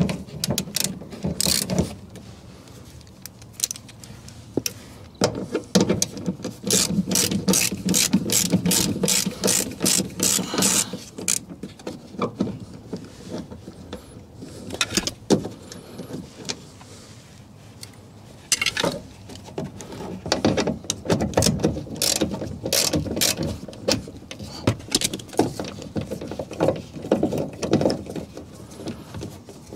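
Hand ratchet with a 10 mm socket clicking in repeated runs of quick, even clicks as screws are undone, with pauses of handling noise between runs.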